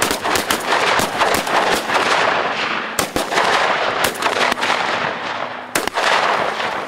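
A rapid, ragged volley of shotgun blasts from several goose hunters firing together, some shots nearly overlapping, with echoes filling the gaps between them. The firing thins out near the end.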